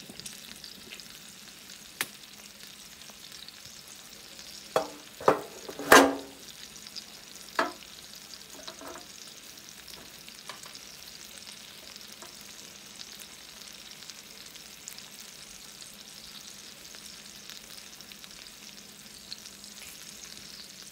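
Sausage patties sizzling steadily in a cast-iron skillet, with a few sharp knocks about five to eight seconds in, the loudest around six seconds.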